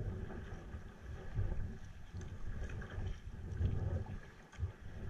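Wind buffeting the camera microphone in uneven low gusts, with water splashing and lapping around a sea kayak and small drips ticking now and then.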